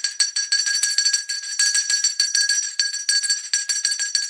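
Small metal handbell rung rapidly by hand, its clapper striking many times a second over a steady high ring. It is rung as a call for attention.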